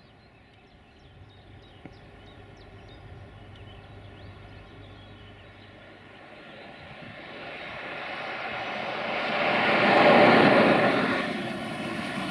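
Class 060-DA (LDE2100) diesel-electric locomotive with its Sulzer twelve-cylinder engine, approaching at the head of a freight train, its engine drone growing from faint to loud and peaking about ten seconds in. Faint birds chirp in the first few seconds.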